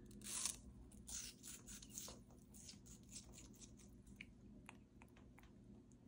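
African grey parrot biting and crunching a slice of apple with its beak: a run of short, crisp crunches, the loudest about half a second in, thinning out after about three seconds.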